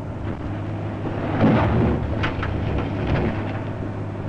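Crawler excavator's diesel engine running under load with a low rumble that swells about one and a half seconds in, and a few clanks from the machine working.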